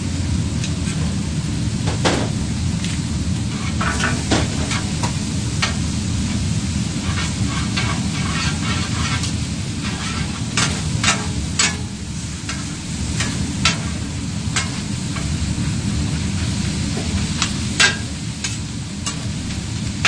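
Gopchang, vegetables and glass noodles sizzling on a hot flat griddle as they are stir-fried with two metal spatulas. The spatulas scrape and click against the griddle many times at irregular intervals.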